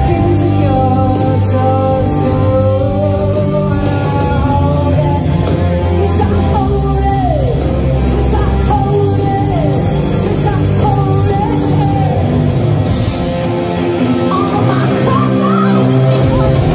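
Live rock band playing: electric guitar and drums, with a woman singing.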